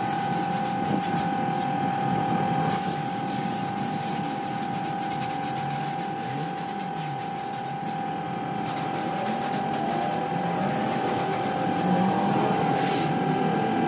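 Compressed-air paint spray gun hissing as paint is sprayed, the hiss stepping up and down as the trigger is worked. Underneath, the air compressor feeding it runs steadily with a constant whining tone.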